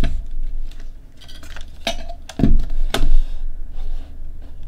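Sharp clicks and knocks of multimeter test probes being handled and touched against the metal enclosure and its screws, a few separate taps with the loudest about two and a half to three seconds in.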